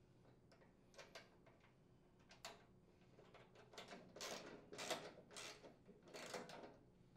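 Faint metal clicks as a bolt is fitted through the chipper shredder's discharge chute hinge. About four seconds in, a socket ratchet tightens the nut in a run of short strokes.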